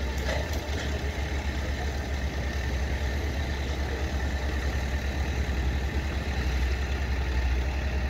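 Plate compactor's small engine idling steadily with a low, even hum.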